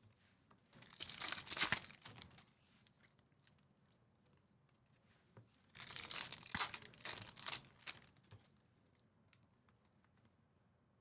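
Trading-card pack wrappers being torn open and crinkled by hand, in two bursts of rustling about five seconds apart.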